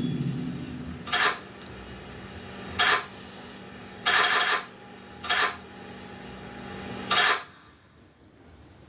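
Horror-trailer sound design: five sharp, loud bangs at uneven intervals over a faint low drone, which fades out after the last bang.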